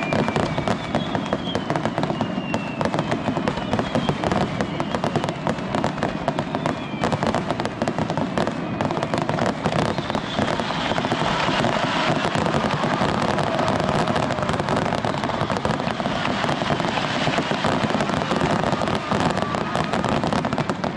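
Aerial fireworks display: a dense, continuous barrage of bursts and crackling. In the first several seconds a few whistling tones glide downward.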